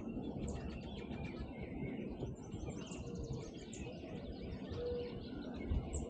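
Many songbirds chirping and singing at once, a busy mixed chorus of short calls and trills. A low, steady note repeats a few times in the second half, over a constant low rumble.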